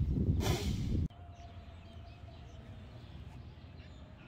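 Wind buffeting the microphone with a short hissing burst about half a second in; the sound cuts off abruptly about a second in to a much quieter outdoor background.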